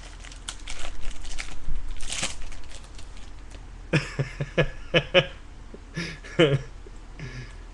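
Baseball cards being handled and shuffled by hand, with some wrapper crinkling, in rustling bursts over the first couple of seconds. A few short murmured sounds follow from about four seconds in.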